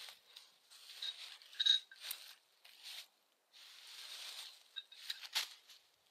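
Dry fallen leaves and brush crunching and rustling underfoot and in hand, irregular and loudest a little under two seconds in, with a short lull near the middle and a sharp snap about five seconds in.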